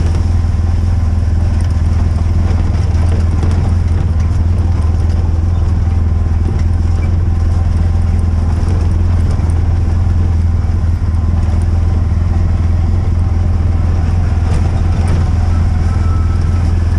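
A steady low motor drone, like a vehicle engine running at constant speed, with no change in pitch or level.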